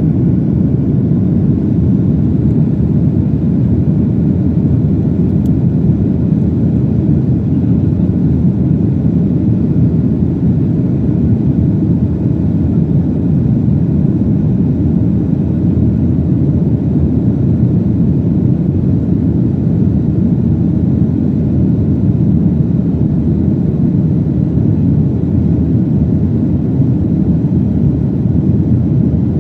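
Steady low roar inside the cabin of a Boeing 737-900 after takeoff: engine and airflow noise from its CFM56-7B engines, heard from a rear window seat, with no change in pitch or level.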